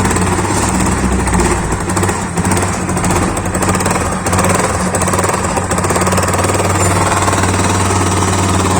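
Yamaha FZ25 single-cylinder 250 cc engine running steadily, with a rapid knocking rattle from inside the engine. The mechanic takes the knock most likely for worn bearings, though he also suspects the piston.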